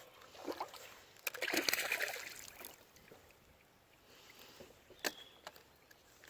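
Water splashing at a kayak's side: one main splash about a second and a half in, with a few sharp knocks on the hull near the end.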